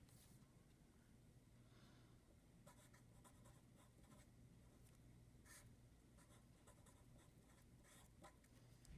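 Faint scratching of a pen writing on paper, in a series of short strokes, with a low steady hum underneath.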